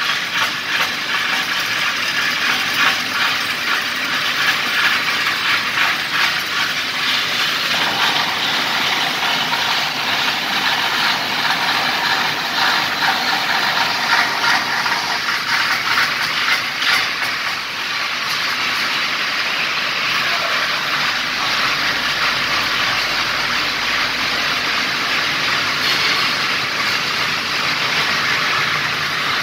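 Plastic tape plant line running: the film slitting section and chrome godet stretching rollers give a loud, steady mechanical din with a dense rattle, which evens out into a smoother hiss about two-thirds of the way through.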